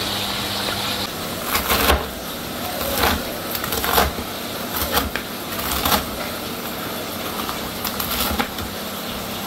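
Chef's knife slicing through crunchy fried chicken breading on a plastic cutting board: a series of sharp crunching cuts, about one a second, each ending in a knock of the blade on the board, over a steady hum.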